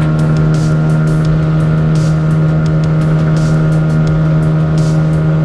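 Two-stroke outboard motor on an inflatable dinghy running steadily under way at a constant throttle, with irregular splashes of water against the hull.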